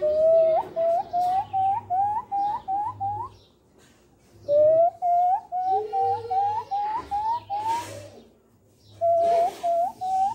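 Hand-held jacu (guan) bird call blown to imitate the guan's 'piado', the whistle one jacu uses to call another. It gives short upward-slurred whistled notes, about three a second, in three runs, each run climbing in pitch.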